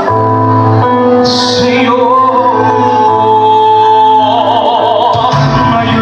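A singer holding long notes with vibrato over backing music, amplified through a sound system.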